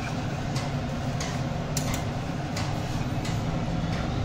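Metal spatula stirring a thick fish and potato curry in a wide metal kadai, knocking and scraping against the pan in irregular light clicks about one or two a second, over a steady low hum.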